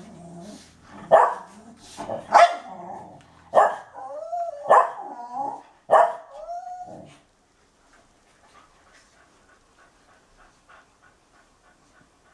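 Puli dogs at play barking five times, about once a second, several barks drawing out into a wavering, whine-like tail; after that, faint rhythmic panting.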